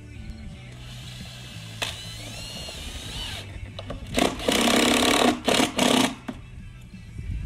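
Makita cordless drill driving a screw to fasten a spa-pack box to the wall: the motor runs in one burst of about a second, starting about four seconds in, then in two or three short bursts as the screw is seated.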